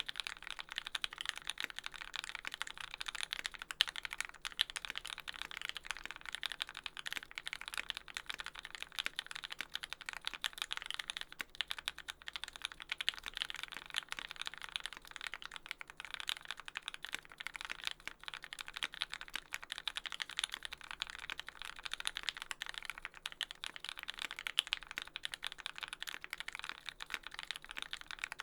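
Fast, continuous typing on a Percent Studio Canoe mechanical keyboard with an aluminium plate, lubed linear Tealios V2 switches with Cherry top housings and GMK keycaps, no sound dampening: a rapid stream of keystroke clacks.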